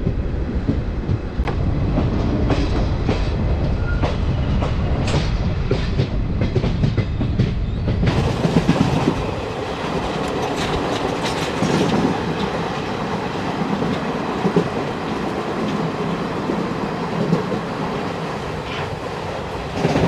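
Indian Railways express train's coaches running along the track, wheels clattering over the rails, heard from an open coach doorway. About eight seconds in, the deep rumble thins and the clatter carries on.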